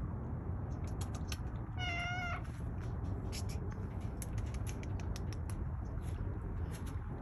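A domestic cat gives one short, wavering meow about two seconds in, with scattered light clicks around it.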